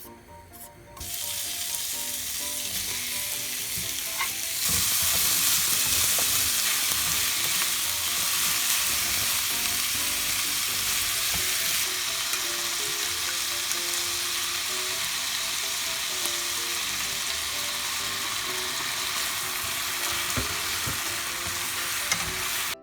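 Food sizzling as it fries in hot oil in a pan. A steady hiss starts about a second in, grows louder a few seconds later, and cuts off abruptly at the end, with faint background music underneath.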